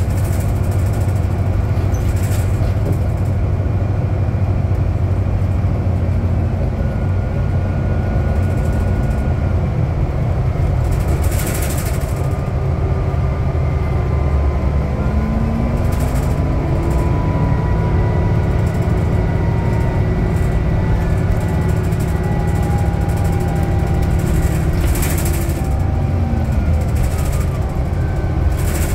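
Cabin noise of a 2010 New Flyer DE60LF hybrid articulated bus on the move: a steady low drone from its Cummins ISL diesel and drivetrain, mixed with road noise. Faint tones slide slowly in pitch, and there are a few brief rattles.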